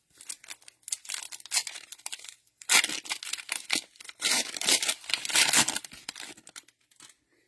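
Cellophane wrapper of a Mosaic cello pack of trading cards being torn open and crinkled: a run of crackling rustles, loudest about three and five seconds in.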